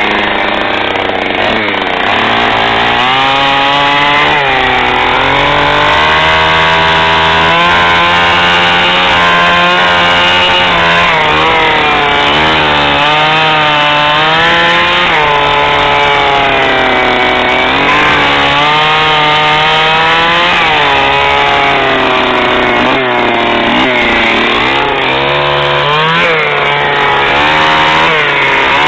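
Stihl 009L two-stroke top-handle chainsaw cutting wood, the engine pitch rising and sagging again and again as the chain bites into the cut and comes free.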